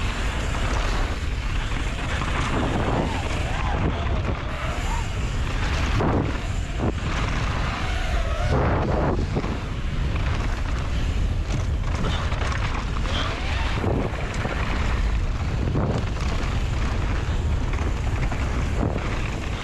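Loud, steady wind rush over the microphone of a fast-moving camera, with a few faint whines that glide up and down now and then.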